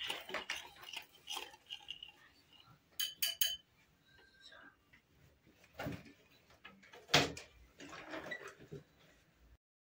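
Wire whisk stirring and scraping against a bowl while mixing an oil-and-spice marinade, with three quick ringing clinks about three seconds in and a sharp, louder clink a little after seven seconds.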